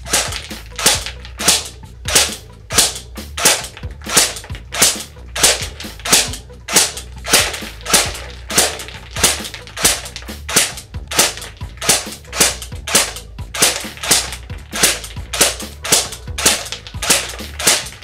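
Airsoft G36C rifle firing single shots, about two a second, each a sharp snap.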